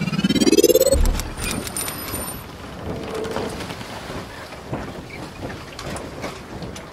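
Logo-intro sound effects: a rising swoosh that ends in a deep boom about a second in, then a long noisy, rumbling tail with scattered clicks that slowly fades.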